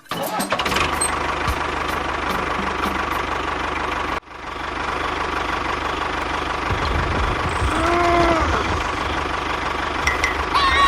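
A motor or small engine running steadily with a faint whine. It cuts off abruptly about four seconds in and starts again at once. A brief rise-and-fall tone sounds around eight seconds in.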